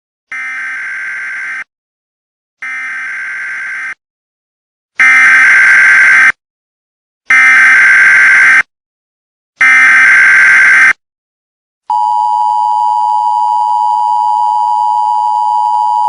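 Emergency Alert System signal: a run of harsh, warbling digital data bursts (SAME header tones), each about a second and a quarter long with second-long gaps, the last three much louder. About 12 seconds in, the steady two-note EAS attention tone starts.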